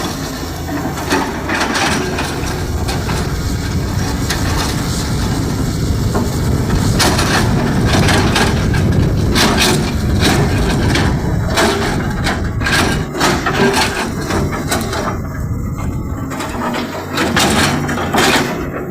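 JCB 3DX backhoe loader at work: its engine rumbles steadily under load while the bucket and the earth it handles give repeated sharp cracks, knocks and clatter, thickest about halfway through.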